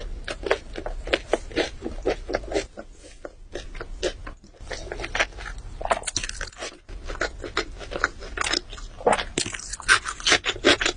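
A person chewing and biting food close to the microphone: a steady run of sharp crunchy and wet clicks, several a second, easing off for a moment around four seconds in.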